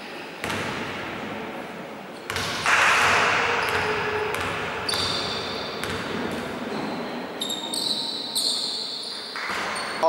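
Basketball bouncing on a gym floor, with players' voices, all echoing in a large sports hall.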